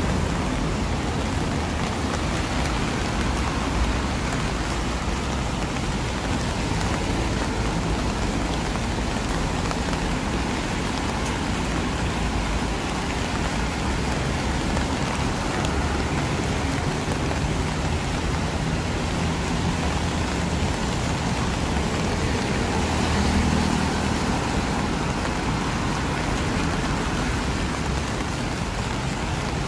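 Steady heavy rain falling on the street, with a low rumble of road traffic underneath that swells briefly about three quarters of the way through.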